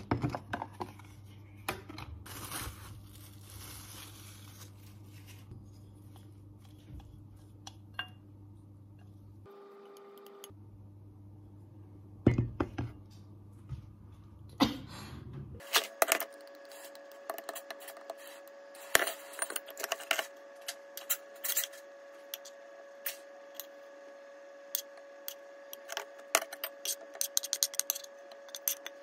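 Kitchen handling sounds: a spatula and frying pan clinking and scraping against ceramic bowls as food is served, with many sharp clicks and knocks in the second half over a steady hum.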